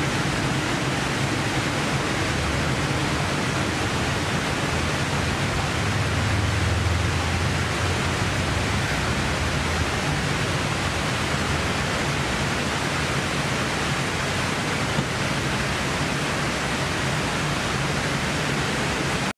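Steady, even rushing noise with a faint low hum beneath it, swelling slightly about six to eight seconds in; no bell and no voices.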